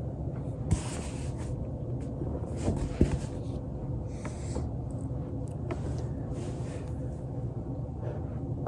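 Body rolling on a foam roller, with several sharp joint cracks, the loudest about three seconds in, over a steady low hum.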